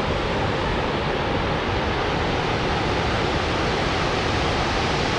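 Steady, even rushing of High Falls, a large waterfall, with no let-up.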